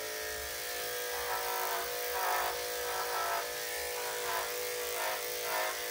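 Electric dog clippers buzzing steadily while shaving a dog's wet coat, with the tone changing now and then as the blade works through the hair.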